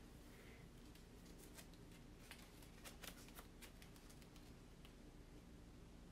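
Near silence, with faint soft clicks and rustles of a mesh stencil transfer being handled and laid down onto a painted board.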